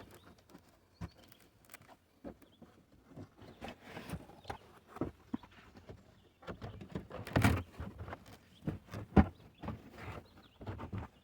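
Irregular light clicks and knocks of a plastic trunk-trim grommet being worked loose and trim pieces handled, with two louder knocks past the middle.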